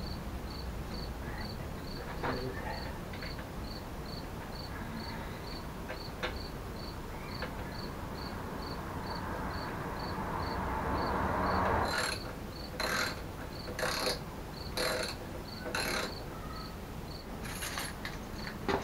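A cricket chirps steadily about twice a second. Over it come sounds of hands at work on a mobility scooter's rear end: a rustle that swells and stops sharply about twelve seconds in, then a string of sharp metallic clicks and rattles about a second apart.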